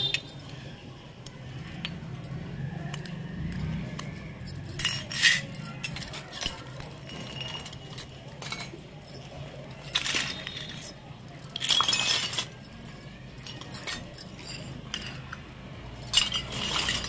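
Miniature stainless-steel toy cookware clinking as it is handled: several short metallic clinks with a brief ring, scattered through, over a steady low hum.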